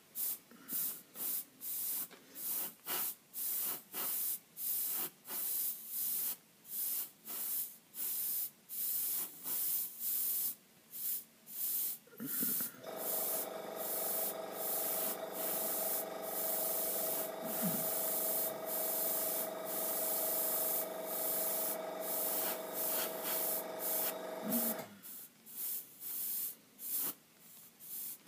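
Airbrush spraying paint in short hissing bursts, about one and a half a second, then held open for about twelve seconds with a steady whistling tone in the hiss, then back to short bursts near the end.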